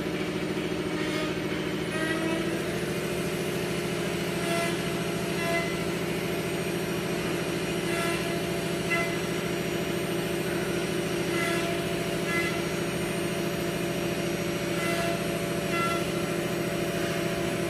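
A 5x8 ft CNC woodworking router runs while its spindle works a wooden board: a steady machine hum that steps up in pitch about two seconds in, with short higher-pitched whines coming and going every second or so as the head moves.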